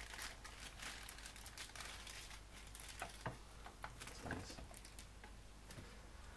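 Faint rustling and light clicks of a camera neck strap and its plastic bag being handled.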